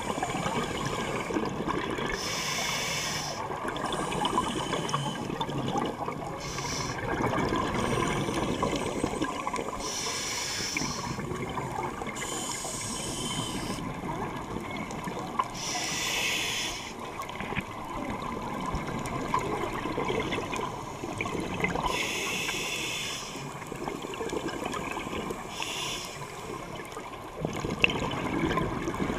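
Scuba diver breathing through a regulator underwater: a hiss on each breath in and a burst of bubbling on each breath out, every few seconds, over a continuous low bubbling.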